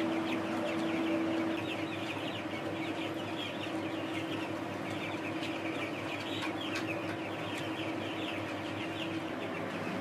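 A flock of young chicks peeping continuously, many short falling peeps overlapping, over a steady low hum.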